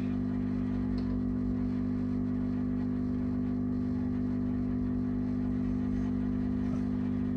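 Tube tester humming steadily while an EL156 power pentode is held under load for its emission test: a low, even mains hum with a stack of overtones and no change in pitch.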